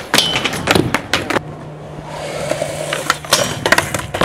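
Skateboard on concrete and a metal handrail: a quick run of sharp clacks and knocks in the first second and a half, then wheels rolling, then another cluster of hard impacts near the end as the skater bails off the rail and the board clatters away.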